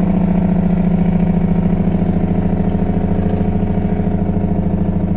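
Heavy truck's diesel engine running steadily in sixth gear on a long downhill grade, heard from inside the cab: a deep, even drone with a fast regular pulse.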